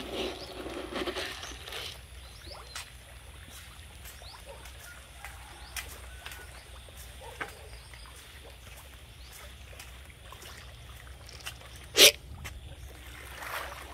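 Quiet outdoor background with scattered faint ticks, and one loud, short, sharp sound about twelve seconds in.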